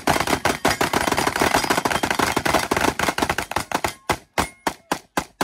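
Several rifles fired rapidly at once: a dense, overlapping string of gunshots for about four seconds, thinning to a handful of spaced single shots near the end.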